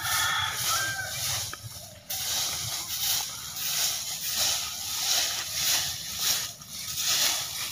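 Dry fallen leaves rustling and scraping under a short grass broom, swept in quick repeated strokes about twice a second.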